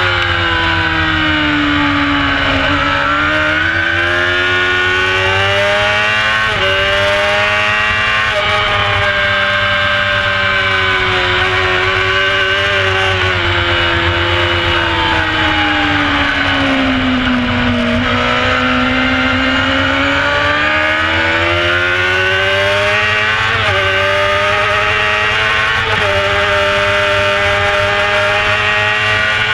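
Carburetted 600cc racing motorcycle engine at high revs, heard onboard with wind rush: the pitch falls as the bike slows for a corner, then climbs hard through the gears with a brief dip at each upshift. This happens twice, with a long slowdown in the middle.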